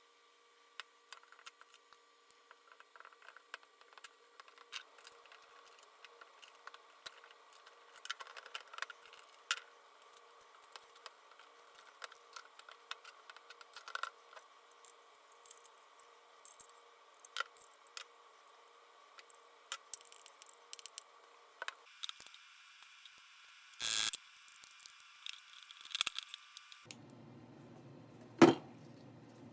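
Scattered small clicks and light clinks of objects being handled over a faint steady hum, with a short louder clatter and then a sharp knock near the end.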